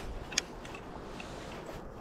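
Baitcasting reel's drag giving one brief click about half a second in, as a pike pulls on the line, over a low steady background of water and wind around the boat.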